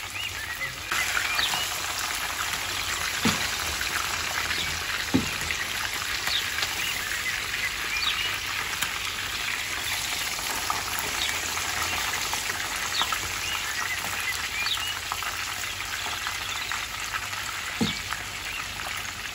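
Whole sea bream shallow-frying in hot oil in a frying pan: a steady sizzle with crackling spits, growing louder about a second in as the lid comes off. A few knocks of the spatula and fork against the pan come as the fish are turned.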